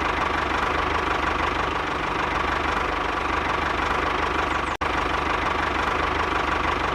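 A motor or engine running steadily, with a fast, even knocking pulse underneath and a steady high hum. It drops out for an instant about five seconds in.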